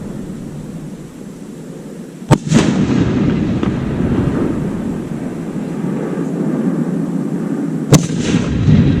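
Fireworks going off: two sharp bangs about five and a half seconds apart, each followed by a rolling echo, over a steady low rumble.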